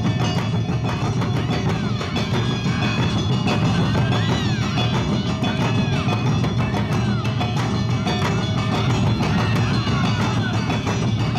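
Awa odori festival band (narimono) playing: drums and clanging kane gongs keep a steady, driving beat under a high, wavering melody.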